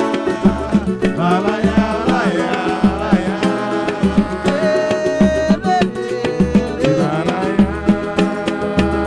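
Live pagode band playing a passage without lyrics: samba percussion and bass in a steady rhythm under a bending melody line.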